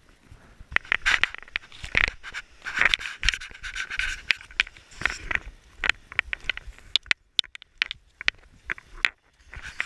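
Walking with skis carried on the back, heard from a body-worn camera: irregular scrapes and knocks of ski-boot footsteps, poles and gear rubbing against the camera.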